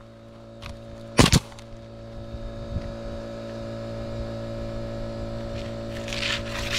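Air compressor running with a steady hum while a pneumatic nail gun fires once about a second in, a sharp double crack, nailing roofing shingles.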